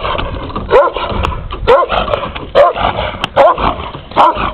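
Caucasian shepherd dog (Caucasian ovcharka) barking with teeth bared, about five barks a little under a second apart: a guard dog's threat display.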